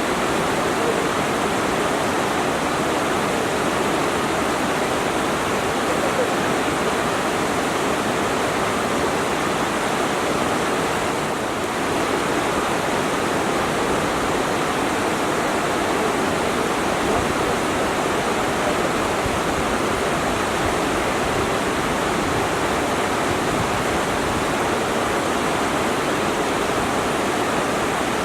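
Waterfall: a steady, continuous rush of falling water.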